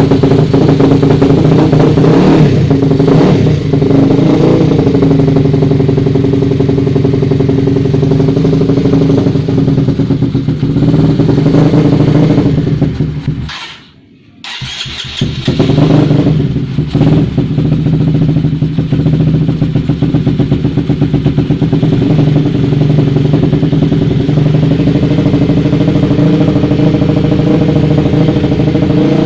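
Carburetted Honda CBR150R single-cylinder four-stroke engine running during carburettor adjustment after a tune-up: mostly a steady idle with a few short blips of the throttle. About halfway through it fades away and cuts out for about a second, then picks up again with a rev and settles back to idle.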